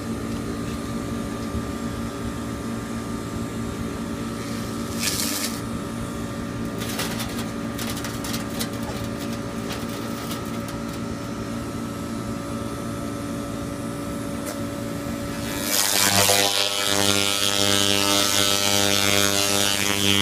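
Handheld laser rust-cleaning gun working on a rusty steel grate. A steady machine hum with scattered sharp crackles runs at first. About sixteen seconds in, a much louder, harsh buzzing hiss starts as the beam strips the rust.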